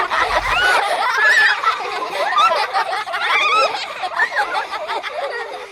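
Several children giggling and laughing together, a high, bubbly overlapping laughter that fades out at the end.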